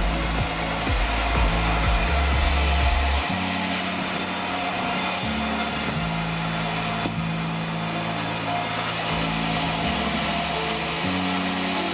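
Steady machine noise from a sawmill saw running, under background music with a bass line that steps between notes every second or two.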